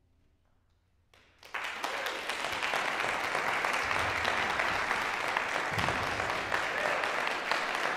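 A brief hush, then audience applause breaks out suddenly about a second and a half in and keeps up, steady and full.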